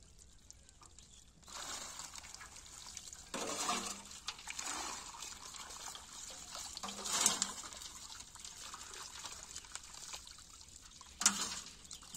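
Water splashing and dripping as a wet fishing net full of small fish is shaken and handled in shallow pond water. There are three louder splashes, about three and a half, seven and eleven seconds in.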